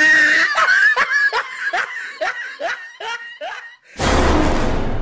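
High-pitched kuntilanak ghost laugh in a woman's voice: a held shriek, then a string of falling 'hi-hi-hi' cackles about three a second. About four seconds in, a sudden loud rush of noise cuts in.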